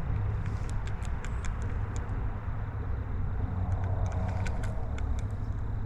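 Steady low rumble with faint, scattered small clicks.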